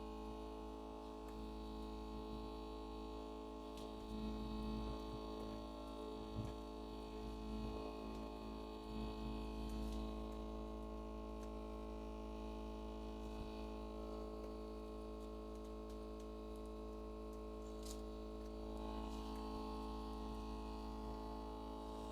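A steady electrical hum with a few faint clicks.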